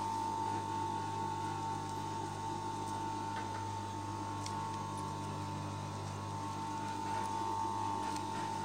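Steady electrical hum with a constant high whine, and a few faint light clicks as fabric is handled.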